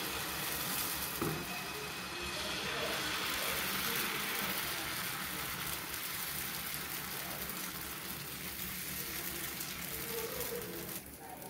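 Tomato dosa batter sizzling steadily on a hot tawa as a ladle spreads it out in circles.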